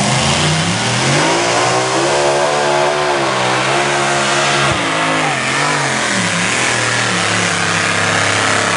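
Light unlimited modified pulling tractor's engine running hard at full power under load as it drags the weight sled down the track, its pitch wavering, sagging and climbing again as the load builds.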